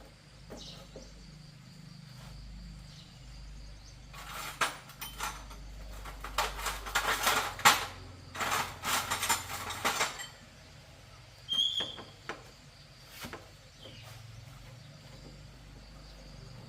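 Metal clinking and rattling in a busy run of several seconds, then a single short ringing clink, over a low steady hum.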